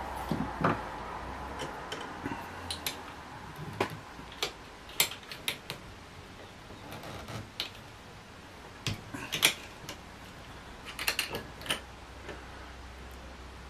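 Irregular small clicks, taps and knocks as the BSA Lightning GRT air rifle's metal action and wooden stock are handled and seated during reassembly. The sharpest knocks come about five and nine and a half seconds in, with a quick cluster of clicks a little later.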